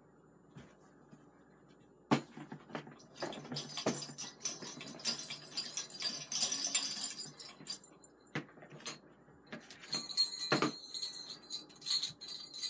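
Small jingle bells on a chain begleri jingling and rattling with sharp clicks, starting about two seconds in. The jingling grows denser near the end.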